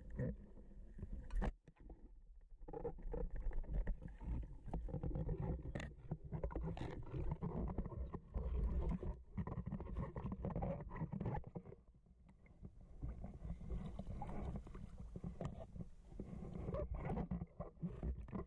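Muffled underwater water movement heard through a submerged camera: a low churning rumble of moving water with scattered knocks and clicks. It goes quieter briefly near the start and again a little past halfway.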